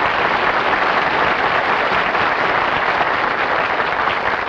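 Live studio audience applauding a character's entrance, a steady wash of clapping that eases slightly near the end.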